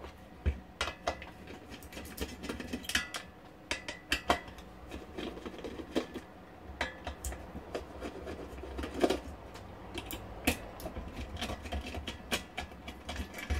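Irregular metallic clicks, taps and clinks of a screwdriver and hands working on a frequency counter's sheet-metal chassis while removing its mains transformer.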